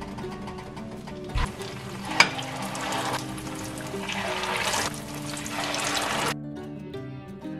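A batter-coated potato-and-shrimp bonda is dropped into hot oil in a small steel saucepan: a thump, then a sharp click about two seconds in, then the oil sizzles and bubbles hard, growing louder, until the sizzle cuts off suddenly about six seconds in. Background music plays throughout.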